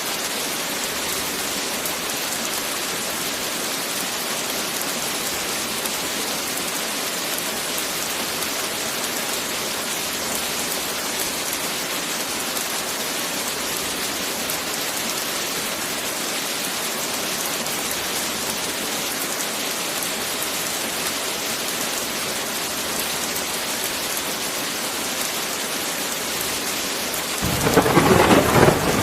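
Heavy rain falling steadily, with a loud roll of thunder breaking in near the end.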